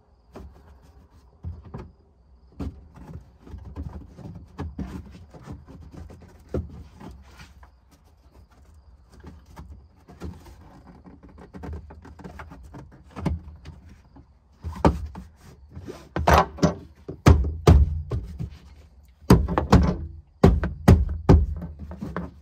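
A 2016 Dodge Journey's plastic cargo-area trim panel being handled and snapped onto its clips: scattered light clicks and knocks, then a run of loud, sharp thumps from about fifteen seconds in as the panel is pushed home.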